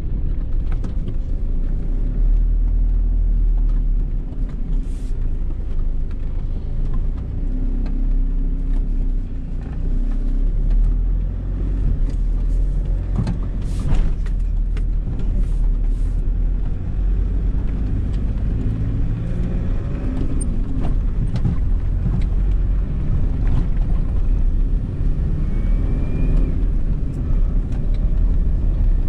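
A Nissan car driving, heard from inside the cabin: a steady low engine and road rumble whose pitch shifts a little with speed, with a few light knocks.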